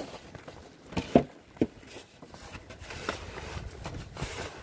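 A few short crunching steps in deep snow, a cluster about a second in and another near three seconds, over faint wind.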